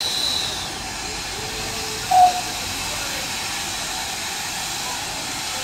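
Polish-built steam tank locomotive standing at the platform with a steady hiss of escaping steam. A brief loud tone sounds about two seconds in.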